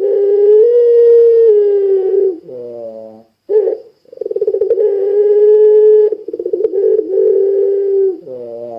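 Puter pelung dove cooing: several long, held coos of about two seconds each, slightly wavering in pitch, each ending in a lower, falling note, with a short call between them.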